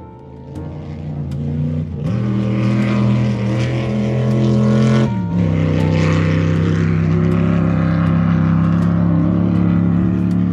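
A motor vehicle's engine speeding up. About five seconds in, the pitch drops as in a gear change, and the engine then runs steadily.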